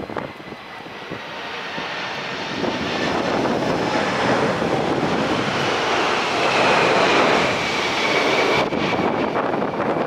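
Jet engines of a Boeing 747-400 on landing approach, growing louder to a peak about seven seconds in as the airliner passes, with a high engine whine that slowly falls in pitch.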